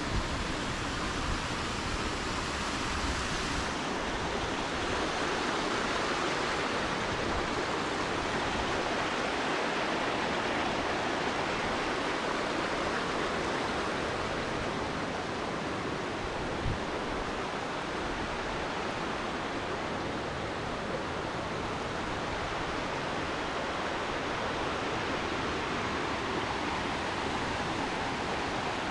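Steady rushing road and wind noise of a car driving at speed on the highway.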